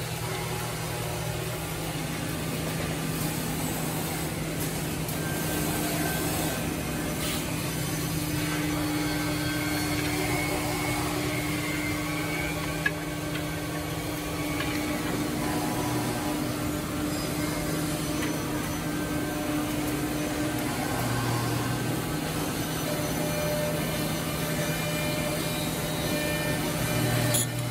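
Woodmaster WM-1500-3CNC three-spindle CNC drilling and mortising machine running, its spindles cutting into wooden boards. A steady machine hum, with a higher whine over the middle stretch.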